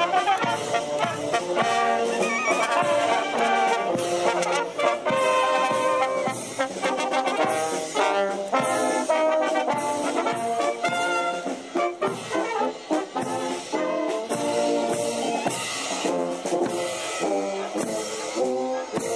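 Brass band playing a march-like tune with a steady beat.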